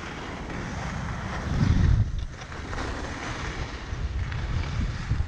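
Wind buffeting the camera's microphone during a fast downhill run on snow, with a strong gust just under two seconds in, over a steady hiss of sliding across packed, groomed snow.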